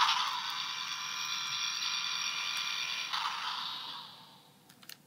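Electronic blast-off sound effect from a Thunderbird 2 toy's small built-in speaker: a steady hissing engine whoosh with faint tones in it, fading away from about three seconds in.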